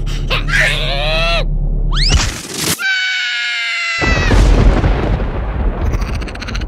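Cartoon sound effects and character voice: a falling squeal and a rising whistle, then a held high scream that cuts off suddenly. A loud boom follows, with a rumbling tail lasting about two seconds.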